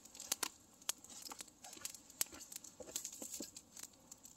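Wood campfire crackling: faint, irregular sharp pops and clicks.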